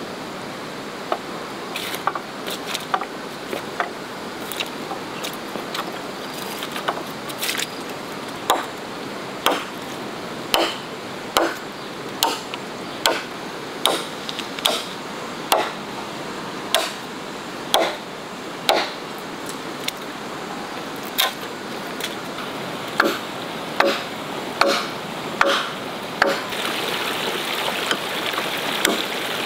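Machete chopping through felled sapling poles: sharp single blows about one a second, with a short pause about two thirds through. A steady rushing hiss runs underneath and grows a little louder near the end.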